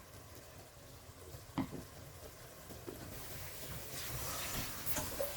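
Water being poured into the pot of chicken and rice, with a faint hiss that builds from about three seconds in after a single knock of the pot earlier on.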